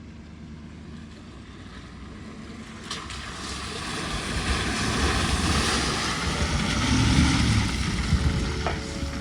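Four-wheel-drive pickup truck driving on a dirt trail: a low engine rumble under a rushing noise of tyres and wind that grows louder from about three seconds in.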